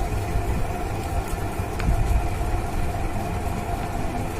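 Steady low rumble with a constant hum from a running motor or machine, unchanging throughout.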